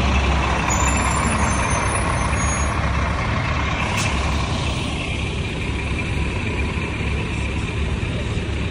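Diesel engine of an MTA express bus running close by with a steady low rumble, easing slightly as the bus pulls ahead, with a brief sharp hiss about four seconds in.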